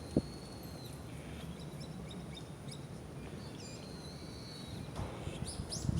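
Wild birds chirping and calling in thin high notes, with a quick series of rising chirps near the end, over a steady low background noise. A single sharp click comes just after the start.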